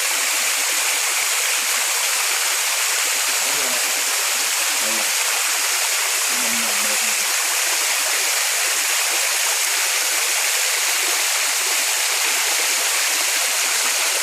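Waterfall: water pouring and rushing in a steady, loud hiss that does not let up.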